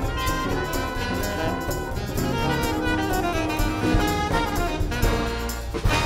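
Instrumental band music with a steady beat; no singing.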